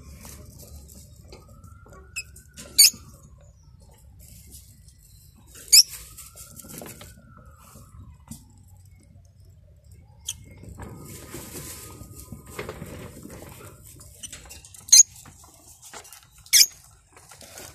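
Ornamental cage birds chirping: four short, sharp, high-pitched calls stand out, with fainter twittering and rustling between them.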